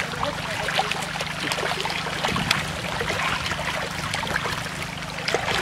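Many catfish thrashing in shallow muddy water, making a continuous patter of small splashes and slaps, with a steady low hum underneath.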